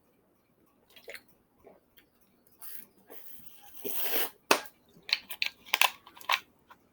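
A person drinking sparkling soda: wet mouth clicks and swallows, with a short breathy hiss about four seconds in and a quick run of clicks near the end.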